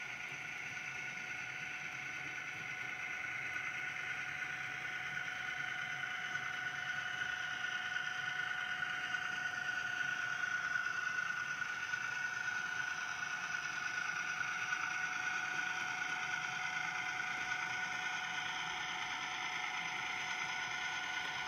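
HO-scale model diesel locomotive running along the track pulling a string of tank cars: a steady whine that grows louder over the first ten seconds or so as the train comes closer, then holds.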